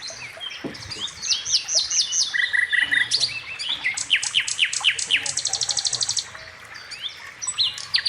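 Several songbirds chirping and singing together: quick runs of repeated high notes, short falling whistles and rapid trills.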